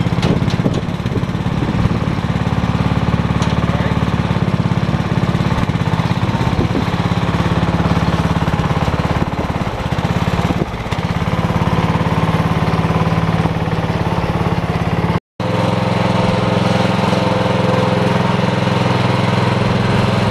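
Riding lawn mower's 14-horsepower engine running steadily with a rapid, even firing pulse. The sound breaks off for a moment about fifteen seconds in, then carries on unchanged.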